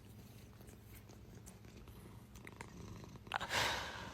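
A cat purring, a faint steady low rumble, with a brief burst of noise a little over three seconds in.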